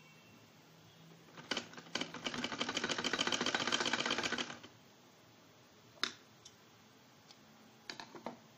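Vintage sewing machine stitching a short seam: a rapid, even clatter of needle strokes lasting about two seconds, led in by a couple of clicks, with a few single clicks later.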